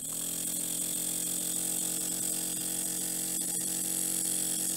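Miniature two-cylinder double-acting model steam engine running on compressed air. It starts suddenly, spins up within a fraction of a second, then holds a steady fast hum with a hiss of escaping air. It gives a power stroke every 90 degrees of crankshaft rotation.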